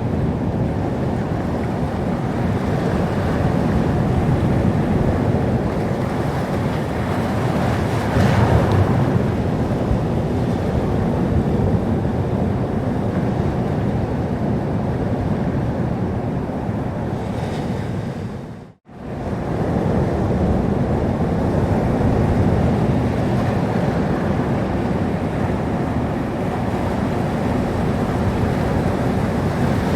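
Sea surf: waves washing in as a steady, deep rush, with one wave breaking louder and brighter about eight seconds in. About nineteen seconds in, the sound fades out to silence for a moment and comes straight back, like an edit join.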